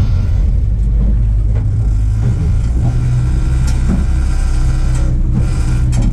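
Boat engine running steadily under way: a loud, even low drone, with a few sharp knocks on deck.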